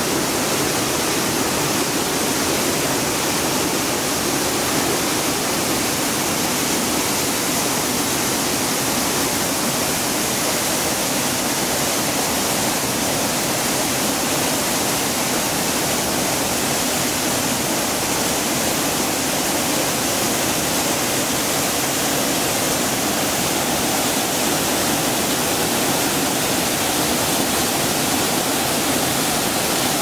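Waterfall water crashing and churning over rocks close by: a steady, unbroken rush.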